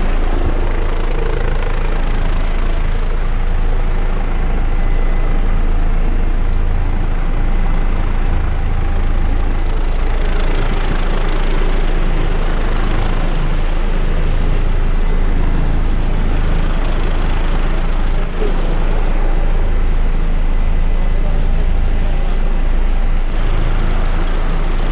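Helicopter running steadily, heard from inside its cabin: a constant loud rotor throb with a high turbine whine over it.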